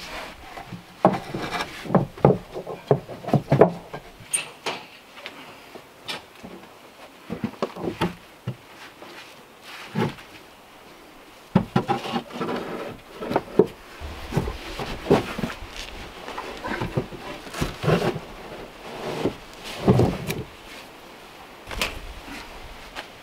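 Field stones being handled and set into a wooden plank slipform: irregular knocks and clunks of rock on rock and against the boards, some loud and sharp.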